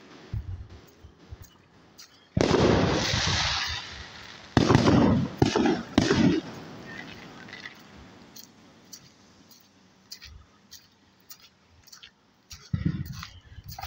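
Aerial fireworks going off at a distance: loud bangs with a rolling echo about two seconds in and again a few times between four and six seconds. Faint pops and crackles follow, then another bang near the end.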